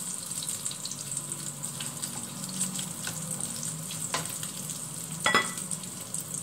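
Beef sizzling as it fries in a pan over a gas burner, with a steady hiss. Metal tongs click against the pan twice near the end, the second clink ringing briefly.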